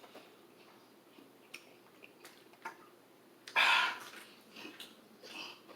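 Mouth sounds of eating spicy chicken: small wet clicks of chewing and lip smacking. A sharp breath or sniff about three and a half seconds in is the loudest sound, with a couple of softer ones near the end.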